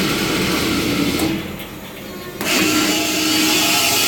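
Vacuum pump's electric motor running with a loud, gritty grinding noise over a steady whine, the sound of its bad bearings. The high hiss falls away for about a second near the middle, then comes back.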